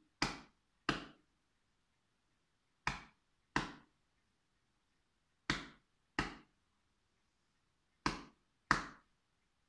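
Body percussion: an open hand patting the chest twice, then again, four pairs of two pats in all, a new pair about every two and a half seconds, keeping a steady two-beat pattern.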